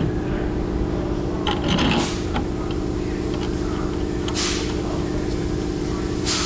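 Steady hum with a few light knocks and scrapes of metal suspension parts and tools being handled, and a hiss starting near the end.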